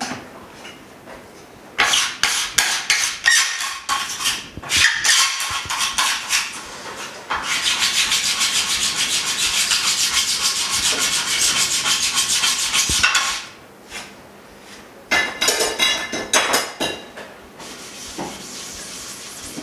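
Gloved hands rubbing across the frosted freezing plate of an LCD freeze separator machine: a run of quick scratchy strokes, then several seconds of steady rubbing, then a few more strokes near the end.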